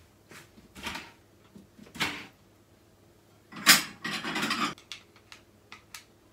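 Household things being handled: a few short knocks and clatters, the loudest a sharp knock about three and a half seconds in, followed by about a second of scraping.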